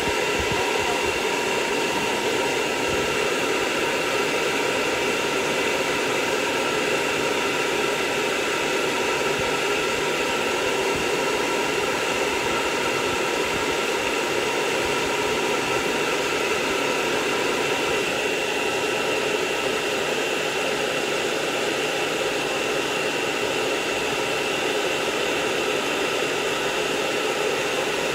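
Electric blow dryer running steadily while drying a dog's coat: a constant rush of air with a few steady whining tones from the fan.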